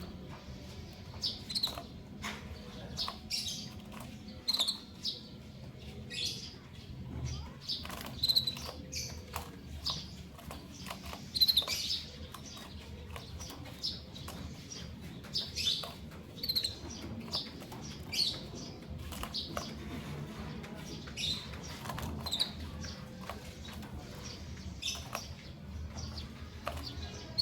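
Caged small finches, a female canary and a male white-headed munia, giving short high chirps every second or so, mixed with many light clicks and taps, over a steady low hum.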